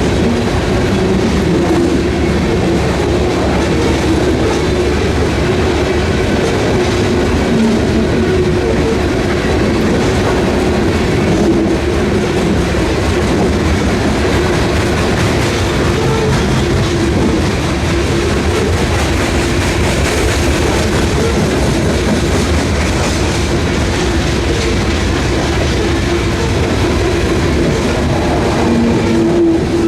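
A freight train's cars rolling past on the rails: a steady, loud running noise with a sustained low hum underneath.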